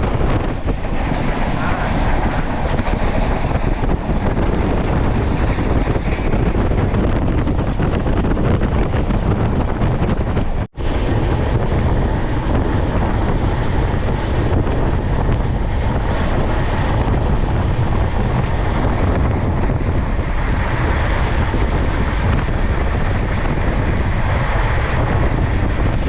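Wind buffeting the microphone over the steady running rumble of a moving train, broken by a brief cut-out about ten seconds in.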